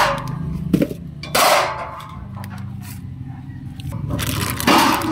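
Metal satellite-dish mounting brackets and tubes clanking and scraping as they are handled and set down on the dish, in four separate knocks: one at the start, a sharp click just under a second in, another around a second and a half, and one near the end.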